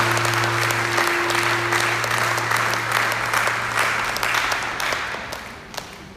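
Audience applauding, the clapping dying away over the last second or so.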